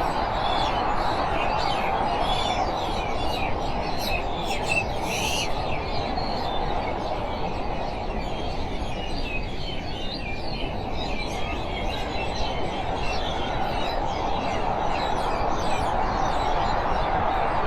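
Many small birds chirping over a steady rushing noise.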